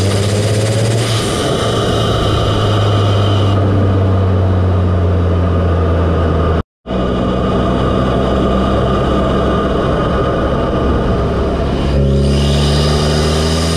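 Audi S3's turbocharged 2.0-litre four-cylinder running, heard close up at its APR carbon-fibre open cone intake: a steady induction sound over a low engine hum. The sound cuts out for a split second just past the middle, and the revs change again near the end.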